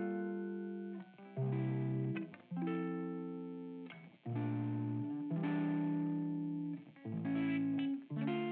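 Instrumental background music of slow chords, a new chord about every second, each one fading away before the next.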